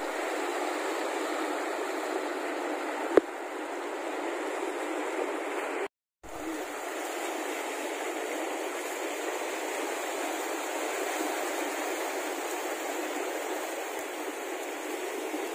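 Steady rush of sea surf washing against a rocky shore, with a single sharp click about three seconds in and a brief cut to silence about six seconds in.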